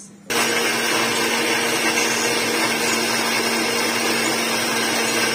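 Electric mixer grinder running steadily in its stainless steel jar, wet-grinding onions, shallots, green chillies and tamarind juice into a sauce. It starts about a third of a second in and holds a constant motor hum under a loud whirring.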